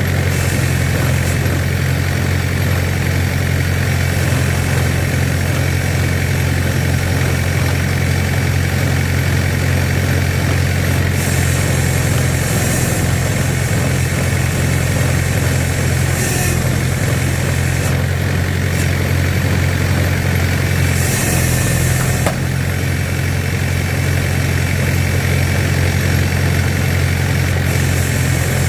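Engine driving a homemade hydraulic log splitter, running steadily at a constant speed, with a few short spells of added hiss along the way.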